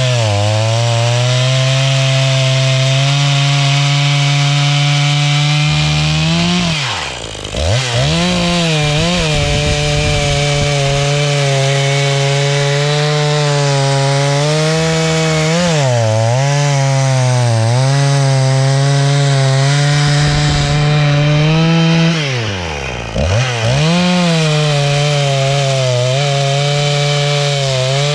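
Echo CS-490 two-stroke chainsaw, muffler modded and carburetor retuned, running at high revs while cutting wood. Twice, about a quarter of the way in and again near the last fifth, the engine speed falls sharply and climbs straight back up.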